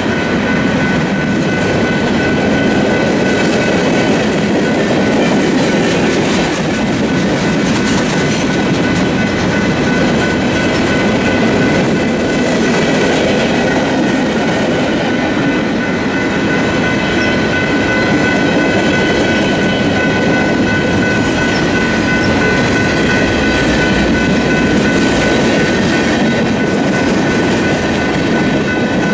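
Freight train of empty TTX flatcars rolling steadily through a level crossing, wheels clacking over the rail joints and the empty cars rattling. Over it the crossing's General Signals Type 3 electronic bells ring steadily.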